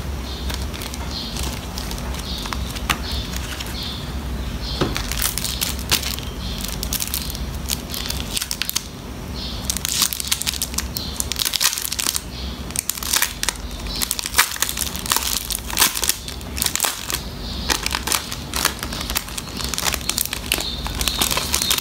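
Clear plastic binder sleeve pages crinkling and crackling as they are handled and flexed, in irregular bursts that grow busier about halfway through.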